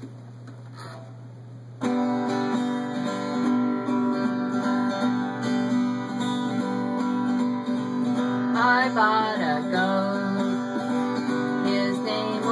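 Acoustic guitar strumming the introduction to a folk song, starting suddenly about two seconds in after a faint low hum.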